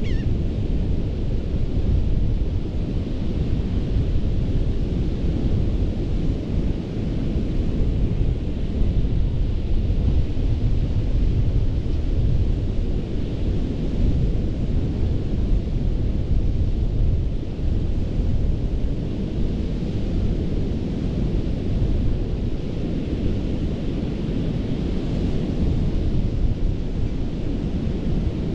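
Ocean surf breaking continuously on a sandy beach: a steady, deep rumble of waves, with the hiss of the water rising a little around halfway through and again near the end.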